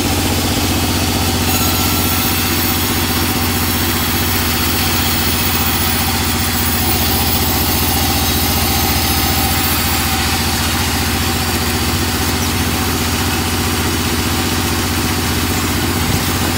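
Band sawmill running steadily with its blade turning free, not cutting, in an unchanging mechanical drone.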